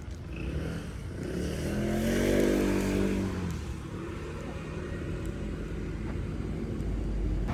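A motor vehicle passes by with its engine note swelling and fading, loudest about two seconds in, over a steady low rumble of traffic.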